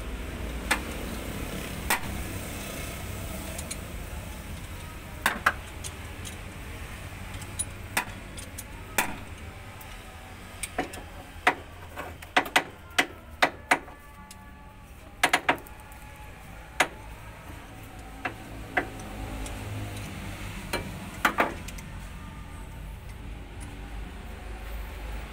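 Irregular sharp metallic clicks and clinks from a socket wrench on an extension bar, as an old steel cylinder-head bolt is turned into a damaged head-bolt hole in the engine block to recut its threads. The clicks come singly and in quick clusters, over a low steady hum.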